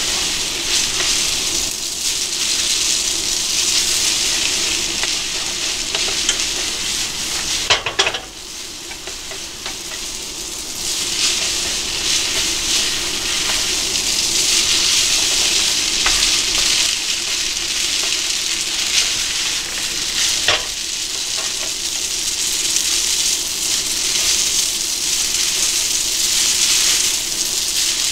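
Spaghetti sizzling in a frying pan over a gas burner as it is tossed and stirred with chopsticks. The steady hiss dips for a few seconds about eight seconds in, with a sharp click there and another around twenty seconds in.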